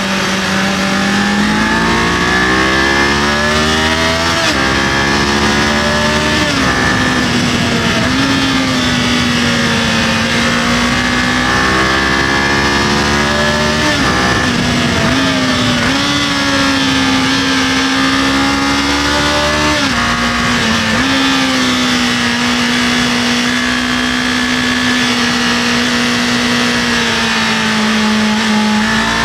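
Kawasaki KLE500 parallel-twin engine under way, its pitch climbing and then dropping several times as the rider accelerates and shifts gears, with steady wind noise underneath.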